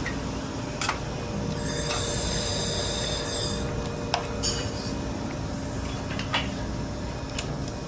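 IPG LightWELD handheld laser welder firing a short weld on thin metal: a high buzzing hiss for about two seconds, over the machine's steady hum, with a few sharp clicks before and after.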